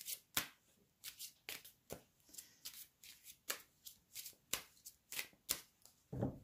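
A deck of oracle cards shuffled by hand, overhand: a steady run of short card slaps, about three or four a second, with a duller knock near the end.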